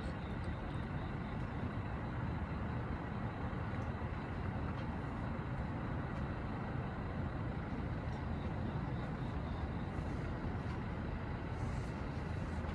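Steady low rumble of outdoor background noise, unbroken throughout, with a faint thin high tone above it.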